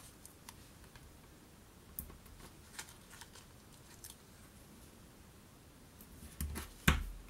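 Faint handling of white cardstock: a few soft, scattered paper clicks and rustles as its cut edge tabs are folded, then a sharper knock on the tabletop near the end.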